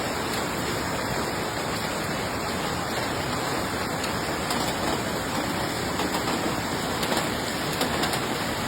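Steady rushing noise of water, as from heavy rain or fast-flowing floodwater, with a few faint ticks later on.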